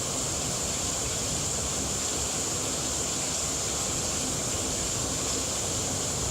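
Tropical rain falling steadily, an even hiss with no separate drops or gaps.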